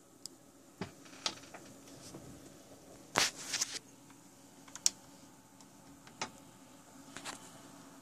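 Irregular plastic clicks and knocks from handling an HP laptop's charger barrel plug and the laptop's case as the plug is fitted into the side power jack. The loudest cluster of clicks comes a little past three seconds in.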